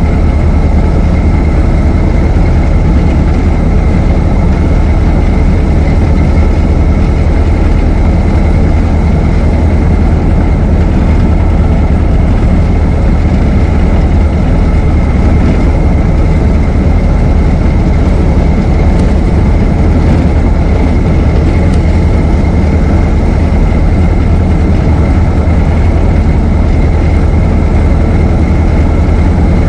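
Ford Model T's four-cylinder engine running steadily while the car is driven, a constant low rumble with a faint steady whine above it and no change in speed.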